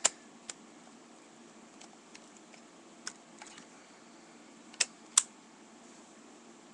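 A few sharp plastic clicks from a toy being handled: one right at the start, a softer one half a second later, one about three seconds in, and a louder close pair about five seconds in, over a faint steady hum.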